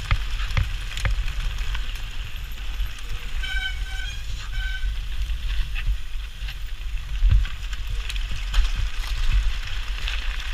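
Mountain bike descending fast over rough gravel in a pack of riders: wind buffeting the action camera's microphone, with tyre noise and a steady run of knocks and rattles from the bike. A short high tone sounds twice about three and a half seconds in.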